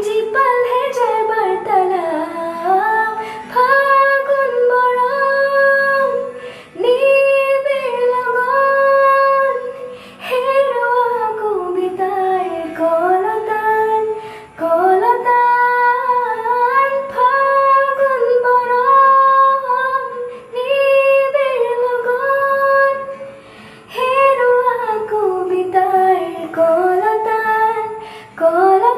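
A girl singing an Assamese song solo: long melodic phrases with held notes and sliding pitch, broken by short pauses for breath every few seconds.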